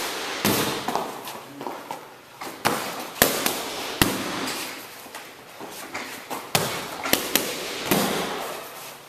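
Boxing gloves and kicks smacking into leather focus mitts and a belly pad during punch-and-kick combinations: about ten sharp slaps at an uneven pace, several coming in quick runs of two or three.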